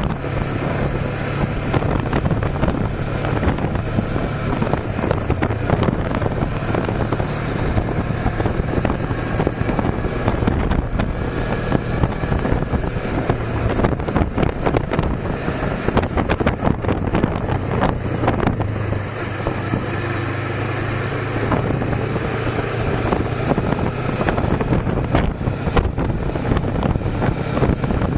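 Suzuki V-Strom 250's parallel-twin engine running steadily while the motorcycle is ridden, with heavy wind noise buffeting the microphone.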